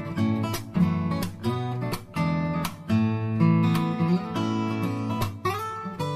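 Background music on acoustic guitar, strummed and plucked in a steady rhythm.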